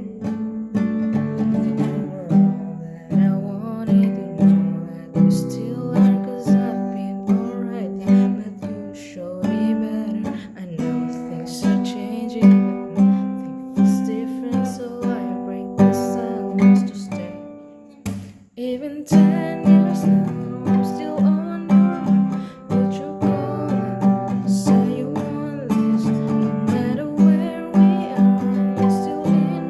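Song with strummed acoustic guitar. The music stops briefly about two-thirds of the way through, then picks up again.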